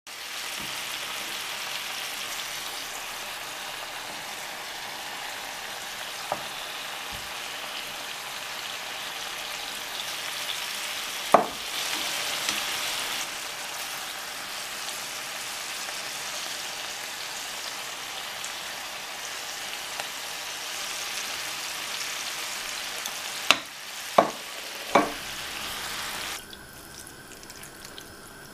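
Chicken, broccoli and cauliflower frying in a pan with a steady sizzle, with a few sharp clinks of serving tongs against the pan. The sizzling cuts off suddenly near the end.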